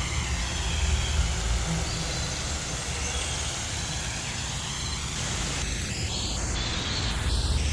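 Jungle ambience recording: a steady rushing hiss over a deep rumble, with faint bird calls in the background.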